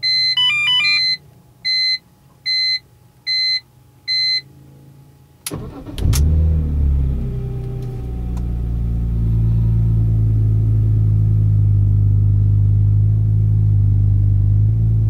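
A series of evenly spaced electronic dash chimes sound with the ignition on. Then the 2004 BMW M3's S54 straight-six cranks briefly, catches about six seconds in with a rev flare, and settles into a steady idle.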